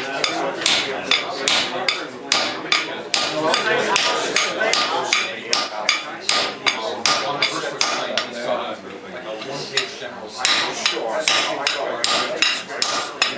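Blacksmith's hand hammer striking metal on an anvil in a steady run of blows, about three a second, with a faint high ring after some strikes; the hammering pauses briefly about two-thirds of the way through, then resumes.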